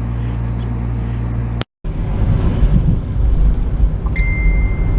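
Low rumble of a car driving, heard from inside the car. A short edit break comes about a second and a half in, and a single steady high-pitched beep sounds near the end.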